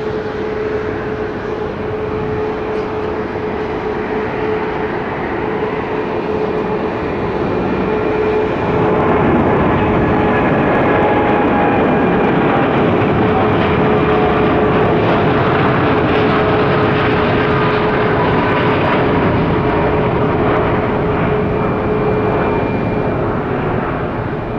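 Boeing 787 twin jet engines (GE GEnx) at takeoff thrust during the takeoff roll, liftoff and climb-out: a steady jet roar with several constant whining tones. The roar swells about a third of the way in and eases a little near the end as the jet climbs away.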